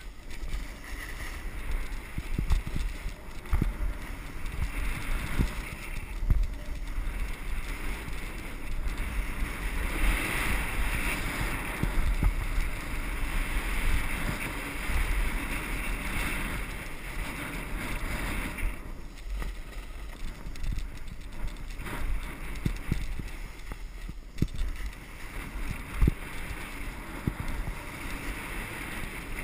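Wind buffeting a body-worn camera's microphone during a downhill run on a groomed ski slope, with the hiss and scrape of edges sliding over packed snow and many small knocks from bumps. The snow hiss is louder from about ten seconds in until about eighteen seconds.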